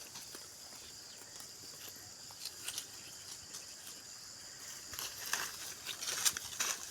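Steady, high-pitched chirring of insects, with a run of rustling, crunching noises that grows louder over the last two seconds.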